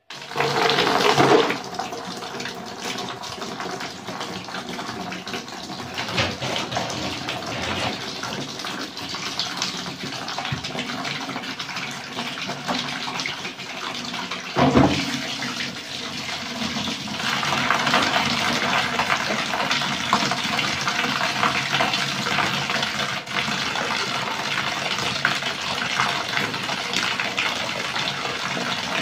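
Running water pouring steadily into a plastic basin, with a sharper splash about halfway through. The pouring gets louder and fuller from a little past halfway as the basin fills with soapy water and clothes.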